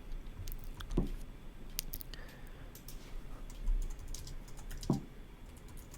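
Faint, irregular light clicking, with two short soft thumps, about a second in and near the end.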